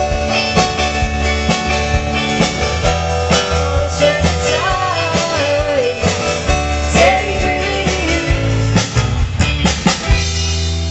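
Rock music with a singing voice, guitars and drums.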